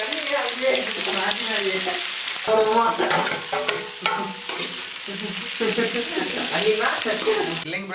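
Sliced onions frying in hot oil in an aluminium kadai, sizzling steadily, with a few clinks of a steel spoon scraping them off the plate. The sizzle cuts off abruptly near the end.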